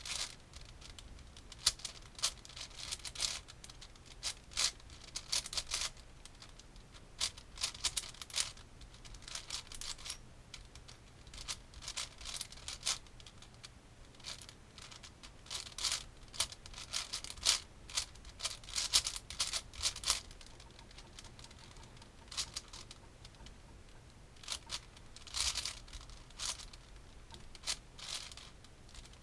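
Plastic Rubik's cube layers being turned fast by hand: runs of rapid clicking and clacking, broken by short pauses.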